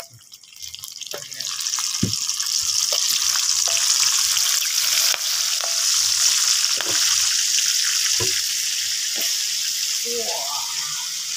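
Tomatoes dropped into hot oil in a pan, sizzling loudly and steadily after rising over the first second or two, with a few sharp clinks of a utensil against the pan.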